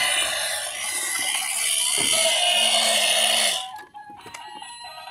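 Battery-operated toy elephant sounding its harsh electronic noise from its speaker, cut off suddenly about three and a half seconds in, as it is switched off. Faint electronic tones follow.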